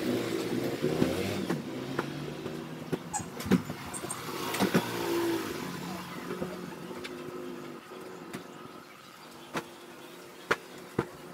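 A motor vehicle engine running outside, its hum fading away over the first several seconds. Scattered sharp taps and light thumps, the loudest a few seconds in, come while bedding is being handled.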